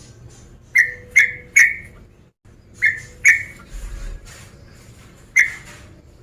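Yellow-vented bulbul (trucukan) calling: loud, short, sharp whistled notes, three in quick succession about a second in, two more near the middle and a single one near the end.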